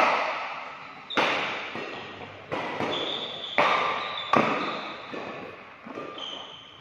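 Badminton rackets striking a shuttlecock in a rally: a string of sharp smacks roughly a second apart, each echoing in the large hall.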